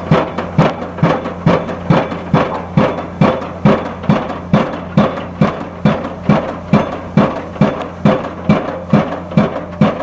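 Hydraulic impact hammer of a Junttan PM 25H pile-driving rig striking the top of a precast concrete pile, a sharp bang a little over twice a second in an even rhythm, driving the pile into the ground. The rig's diesel engine drones steadily underneath.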